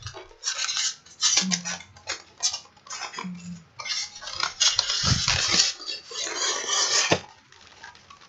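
Cardboard packaging being handled: a white product box pushed and worked into an open cardboard carton, with scraping, rustling and small knocks of card against card.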